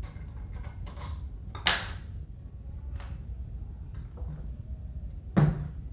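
A few separate knocks and clunks from handling the parts of an old electric fan while it is being taken apart. The loudest comes near the end, with a brief low ring after it.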